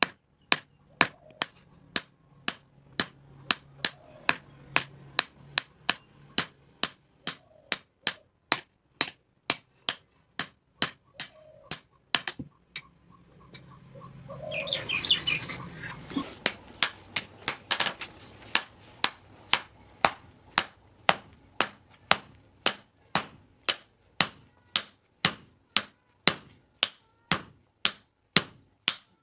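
Hand hammer forging a steel cleaver blade on a steel anvil block: a steady run of ringing blows, about two to three a second, with a pause of a couple of seconds near the middle before the hammering resumes.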